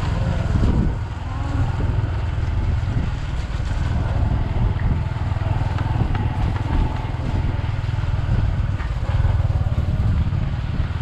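Motorcycle running steadily as it is ridden along, a constant low rumble.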